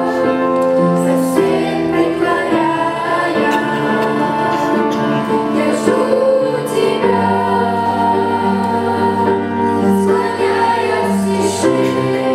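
Children's choir singing a Russian worship song in unison with instrumental accompaniment that holds sustained chords over a bass line.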